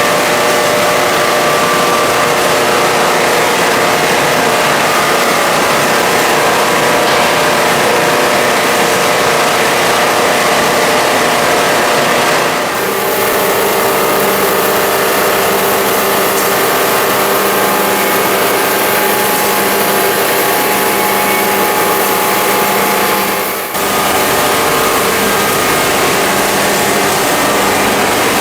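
Machinery of a PET plastic washing line running steadily: a loud, continuous motor hum with many steady tones. The sound changes abruptly twice, about halfway through and again near the end.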